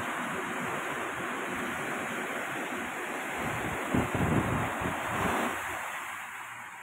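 Surf breaking and washing up a sandy beach in a steady rushing hiss, with wind buffeting the microphone about four seconds in. The wash dies down toward the end.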